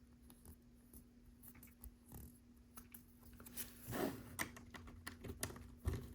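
Faint clicking and rustling of LEGO plastic pieces being handled and fitted. It gets busier and louder in the second half, with the sharpest clicks around four seconds in and again near the end.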